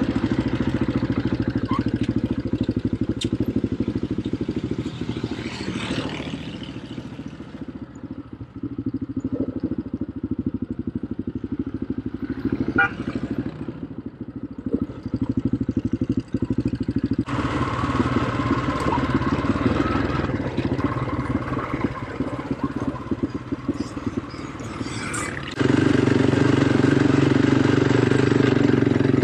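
Quad bike (ATV) engine running off-road, its note and loudness rising and falling with the throttle, with a few sharp clicks along the way. The sound changes abruptly about 17 and 25 seconds in and is loudest at the end.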